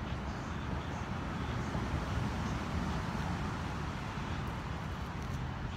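Steady outdoor background noise: an even low rumble with a faint hiss above it, without change.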